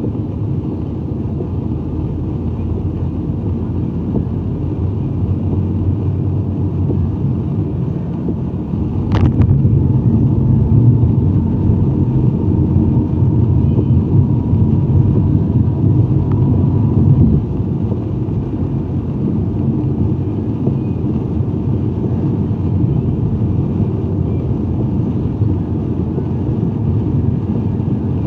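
Car driving in traffic: a steady low rumble of road and engine noise. A sharp click comes about nine seconds in, then the rumble grows louder for about eight seconds before easing back.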